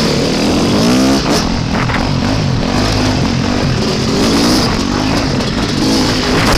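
Dirt bike engine running at low speed, its pitch rising and falling with the throttle, with a quick rev about a second in. Wind buffets the microphone.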